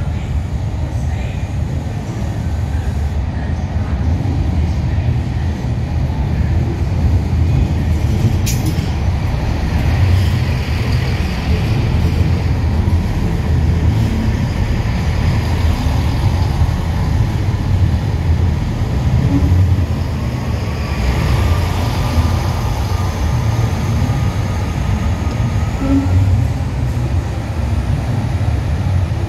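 Class 166 Networker Turbo diesel multiple unit running slowly along the platform, its underfloor diesel engines giving a steady low rumble. A faint rising whine comes in about two-thirds of the way through.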